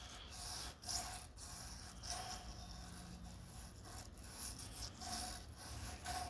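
Old toothbrush scrubbing wood-aging liquid onto the rough cut edges of pallet wood: a run of short, irregular scratchy brush strokes, faint.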